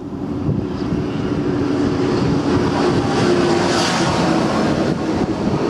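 High-speed train passing on the elevated concrete viaduct overhead: a rushing noise with a steady hum that builds, is loudest about four seconds in, then fades.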